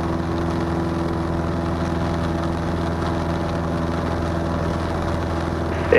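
Cessna 162 Skycatcher's Continental O-200 four-cylinder engine and propeller droning steadily in flight on final approach.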